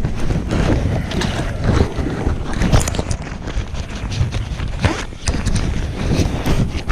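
Wind buffeting the microphone in a steady low rumble, with irregular knocks and rustles scattered throughout.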